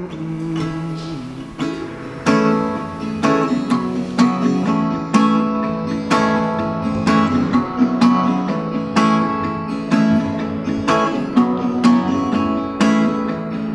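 Acoustic guitar strummed in a steady rhythm, about two strums a second, in an instrumental break of a song with no singing.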